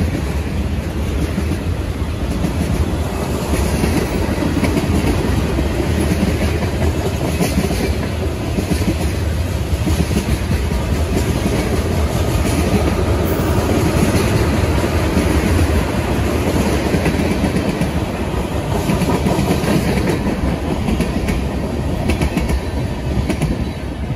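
Freight train cars rolling past, with steady rolling noise and steel wheels clicking over the rail joints.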